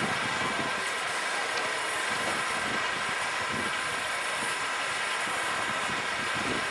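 Steady outdoor background hiss with no distinct event standing out, the kind of even open-air noise made by distant traffic or wind on the microphone.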